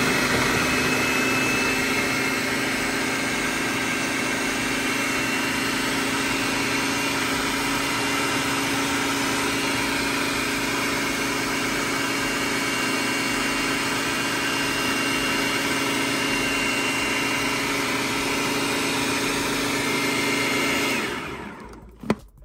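Food processor motor running steadily, grinding green banana, ripe plantain and yautía into pastel dough. Near the end it winds down and stops, followed by a single sharp knock.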